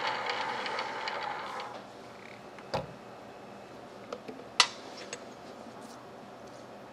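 Drill press running with a countersink cutter on a steel part, fading out about two seconds in. Then a dull thump and a few metallic clinks, the sharpest about four and a half seconds in, as the steel vise and part are handled on the drill press table.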